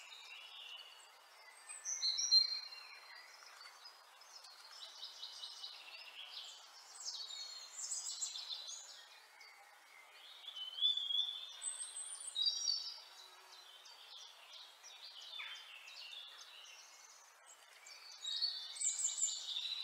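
Songbirds chirping and trilling in short, high-pitched bouts every few seconds over a faint steady hiss.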